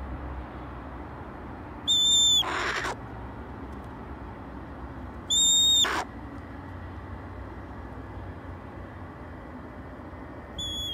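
Red-tailed hawk giving begging calls: two loud, high, steady cries about three seconds apart, each breaking into a rasp, with a third starting near the end.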